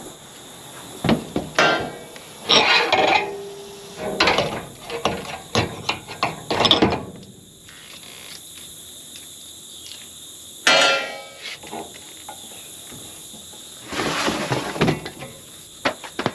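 Irregular knocks, scrapes and rustles as air filter elements are handled and fitted into the air cleaner housing of a John Deere 9500 combine during a filter change.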